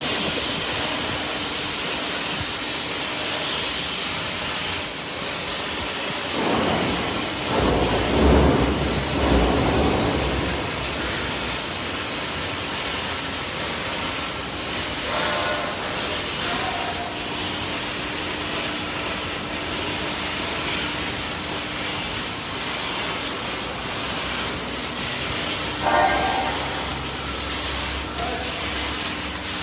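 Steady hissing machinery noise, with a heavier low rumble about eight to ten seconds in and brief whining tones twice later.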